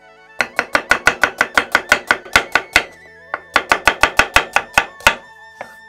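Chef's knife rapidly slicing a red onion on a wooden cutting board: quick, even chops at about six a second in two runs with a short pause between, then a couple of softer knocks near the end. Soft background music underneath.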